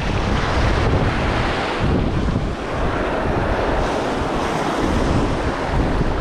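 Wind buffeting the microphone in gusts, over the rush of moving water.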